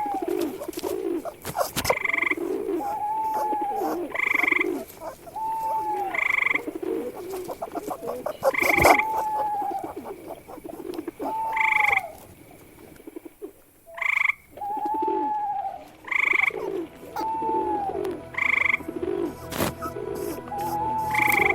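A chorus of frogs croaking, with overlapping calls repeating every second or two, a few sharp clicks, and a short lull about two-thirds of the way through.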